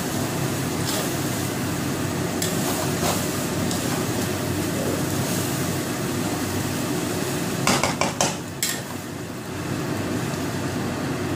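Metal spatula stirring and scraping partly cooked rice in a steel wok, over a steady rushing noise. A quick run of sharp clacks of the spatula against the wok comes about three quarters of the way in.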